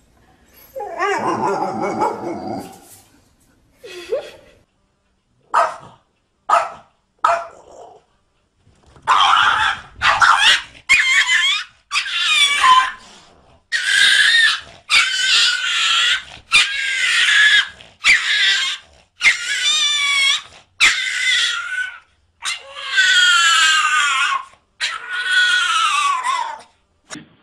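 Dogs barking and growling. Through the second half a small dog yaps over and over in high, wavering yelps, about one a second.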